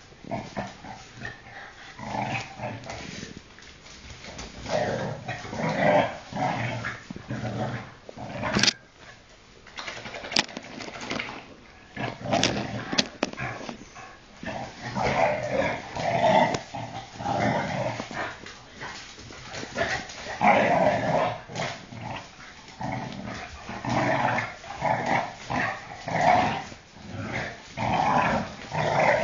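Shar-pei dogs vocalising in rough play, a run of short, irregular growls and grumbles, with a few sharp clicks about nine to thirteen seconds in.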